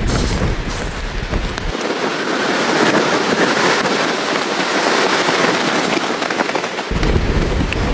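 Storm wind with a dense, steady crackling rush. The low rumble drops out about two seconds in and returns near the end.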